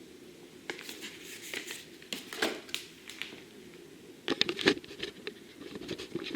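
Hands handling small objects: bursts of crinkling, light clicks and taps, one cluster starting about a second in and a louder one from about four seconds.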